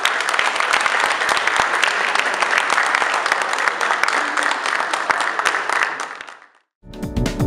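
Audience applauding, a dense patter of many hands clapping that fades out about six seconds in. After a brief silence, music starts just before the end.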